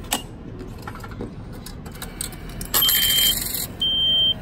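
Railway station ticket vending machine issuing a ticket: a click, then about a second of mechanical whirring under a high beep, then a half-second high beep.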